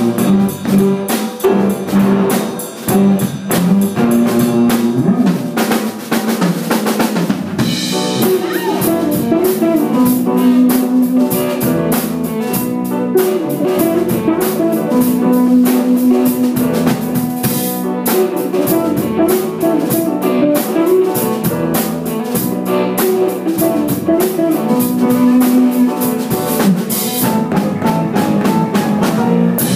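Live funk fusion band playing a steady groove: drum kit with snare and bass drum driving under a moving electric bass line and electric guitar.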